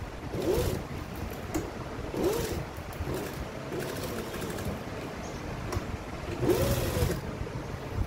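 Siruba industrial sewing machine stitching in three short bursts, its motor speeding up and slowing down each time, with a steady hum between them.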